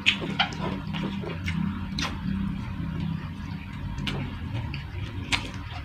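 A person eating close to the microphone: chewing, with sharp, irregular clicks and crunches from the food and the mouth.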